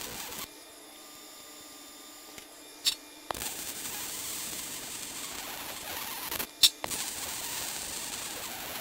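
MIG welding arc on steel plate running with a steady hiss. It stops about half a second in, starts again just after three seconds with a sharp pop, and breaks again briefly with a loud pop past six seconds, as the welder stops and restarts the bead.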